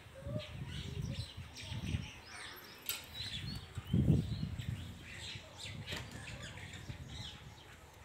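House sparrows chirping, many short high chirps scattered throughout, over low thuds, the loudest about four seconds in.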